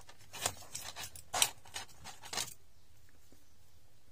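Hands rummaging for a piece of wire among small items on a workbench: a run of short scrapes and rustles over the first two and a half seconds, the loudest about a second and a half in.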